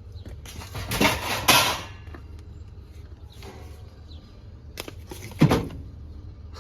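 Sheet metal duct pieces being handled and knocked together: clanks and rattles of thin metal in two bursts, about a second in and again around five seconds in, over a steady low hum.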